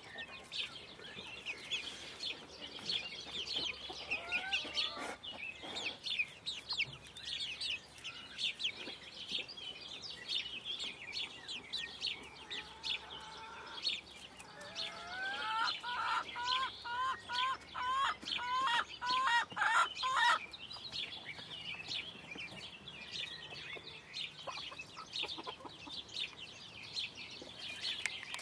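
Five-week-old bantam Wyandotte chicks peeping: a steady scatter of short, high chirps. Partway through there is a louder run of about ten short rising calls, roughly two a second.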